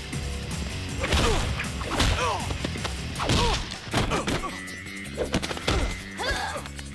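Cartoon fight sound effects: a quick run of punches, thuds and whooshes with short falling-pitch cries, over a steady film score.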